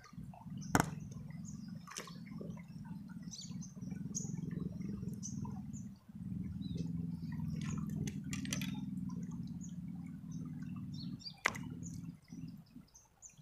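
Shallow river water running and trickling over stones close to the microphone, with a few sharp clicks about a second in, at two seconds and near the end.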